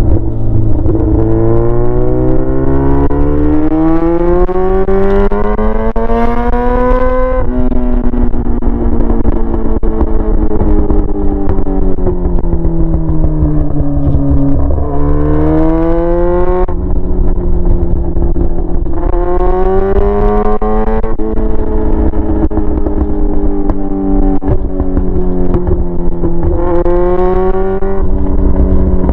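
Yamaha R6's inline-four running with no muffler, straight-piped, while being ridden. Its pitch climbs steadily for about seven seconds and drops sharply, then sags and rises again several times as the throttle is opened and closed.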